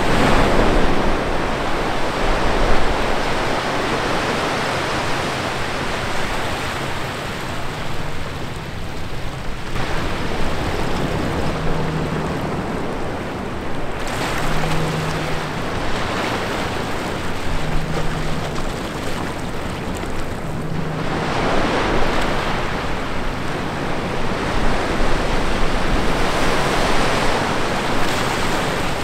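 Small ocean waves breaking between rocks and washing up a sandy beach, the surf swelling and ebbing in several surges. In the middle, four short, faint low tones sound about three seconds apart.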